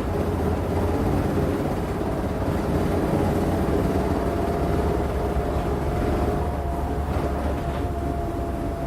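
2012 Hyundai Aerotown bus running with a steady low engine rumble. About four seconds in, a thin steady whine joins it and holds to the end.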